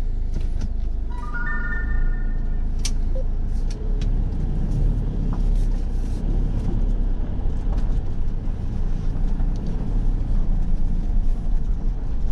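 Motorhome engine running, heard from inside the cab, idling and then pulling away at low speed. A brief electronic chime sounds about a second and a half in.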